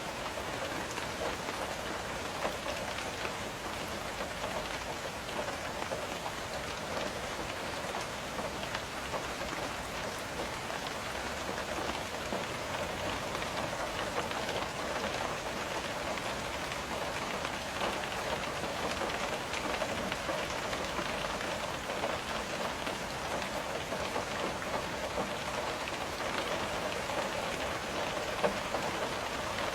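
Steady rain pattering on window glass, a dense even patter of drop taps with one slightly louder tap near the end.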